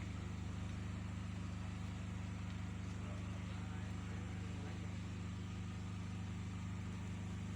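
Steady low drone of a running engine, unchanging throughout.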